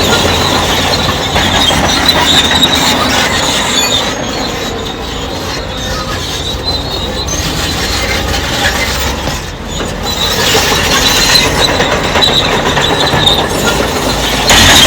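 Bulldozer's steel crawler tracks squealing and clattering as it pushes fill, over the running diesel engine. The high squeal eases in the middle and comes back stronger after about ten seconds.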